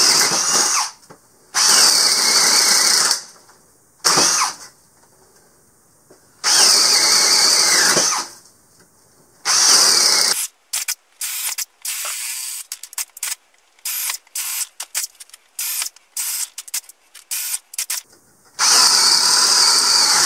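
Hart 20-volt brushless cordless drill running at high speed, boring 7/8-inch holes through a pine 2x4 with a spade bit. It runs in bursts of one to two seconds, one per hole, with short pauses between. In the middle stretch the bursts come short and choppy in quick succession, and there is another long burst near the end.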